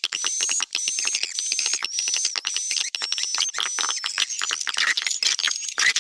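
Swiftlet lure-call recording played back: dense rapid clicking with a high, slightly falling chirp repeated about twice a second. It is a 'tarik' (attracting) call mixed with a roosting call, used to draw swiftlets into a nesting house.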